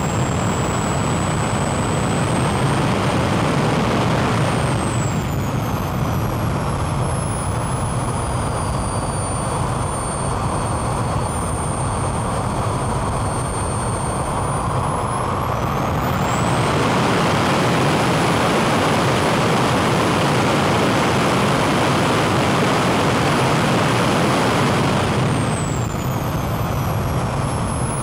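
Swiwin SW120B model turbojet engine running on its test stand: a steady rush of jet noise with a high turbine whine. The whine drops as the engine throttles back about five seconds in, climbs as it spools up again around the middle, holds at its loudest, then winds down near the end.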